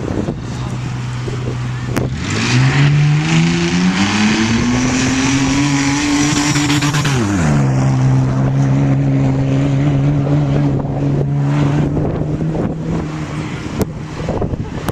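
Off-road vehicle's engine pulling away on a take-off: its note climbs for about three seconds, holds high, then drops sharply about halfway through and settles at a steady lower pitch.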